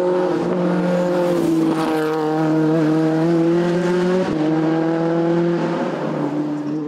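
Race car engine running hard at high revs as the car climbs, its note held steady. Brief breaks in the second half each drop the pitch, like upshifts.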